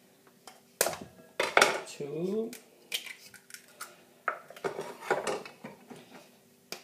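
Eggs being cracked on a stainless steel pot with a knife: a series of separate sharp taps and clinks of the blade against eggshell and the metal pot.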